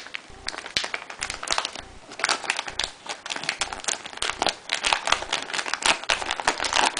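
Plastic packaging crinkling and rustling as a SATA cable's package is handled and opened, in irregular crackles that get busier about two seconds in.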